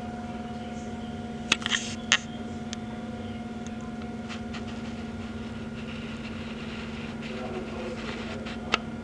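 Steady low electrical hum with hiss: the room tone of a hallway. A few sharp clicks come about a second and a half to two seconds in, and one more near the end.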